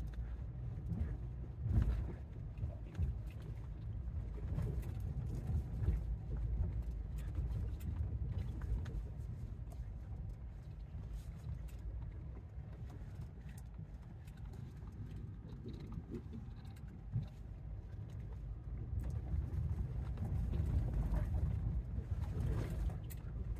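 Toyota Tundra pickup crawling down a rough dirt trail, heard from inside the cab: a steady low rumble of engine and tyres, with occasional knocks and rattles from the bumpy ground.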